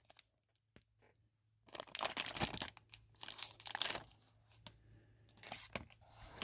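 A trading-card pack wrapper being torn open and crinkled: after a short silence, a loud crackling tear for about two seconds, then lighter rustling of the wrapper and cards.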